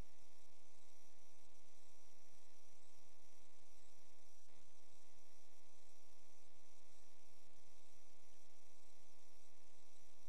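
Steady electrical mains hum, a buzz with many evenly spaced overtones, over a faint hiss, picked up in a drain inspection camera's recording. A faint click comes about four and a half seconds in.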